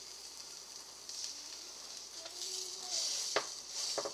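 Buttered grilled cheese sandwich sizzling in a frying pan on the stove, a steady hiss that swells louder in places. Two sharp knocks come near the end.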